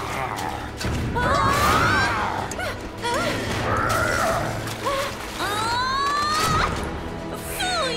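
Cartoon action soundtrack: a music score with crashes and a splash into thick sludge, and pitched gliding sounds throughout.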